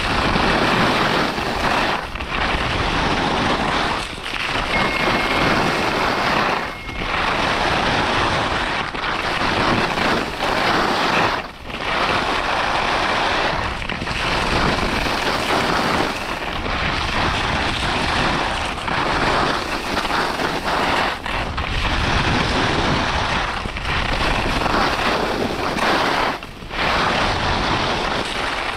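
Skis scraping and carving on groomed piste snow, mixed with wind rushing over the camera microphone. The scraping swells and briefly drops about every two seconds as the skier links turns.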